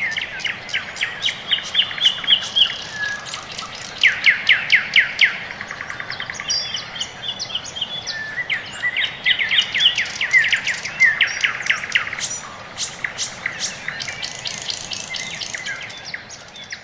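Songbirds chirping and singing in quick repeated notes and trills, with several calls overlapping. The loudest runs come about four seconds in and again around nine to eleven seconds.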